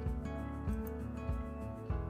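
Instrumental background music with a steady beat, notes starting about every two-thirds of a second.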